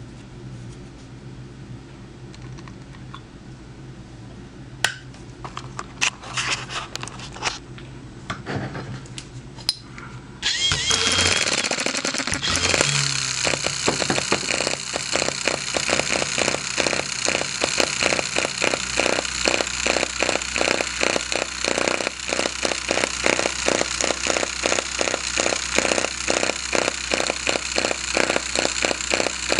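Scattered clicks and knocks, then the tiny spark-ignition, air-cooled hit-and-miss model engine (3/8-inch bore, 1/2-inch stroke) is started about ten seconds in. It runs on a gasoline and two-stroke oil mix, firing as a fast, even train of sharp beats over a steady mechanical whir.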